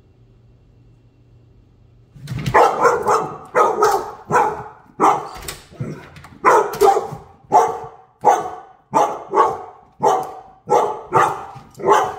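A dog barking repeatedly in quick, sharp barks, about two a second, starting about two seconds in. It is alert barking at a squirrel outside the glass door.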